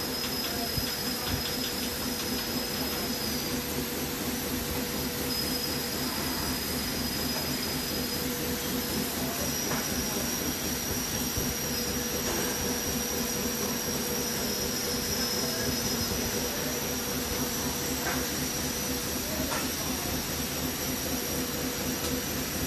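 Steady machine noise: an even hiss over a low hum, with a high whine that drops out now and then and comes back at a slightly higher pitch, and a few faint knocks.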